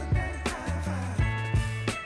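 Background music with a funk-style drum beat over a bass line.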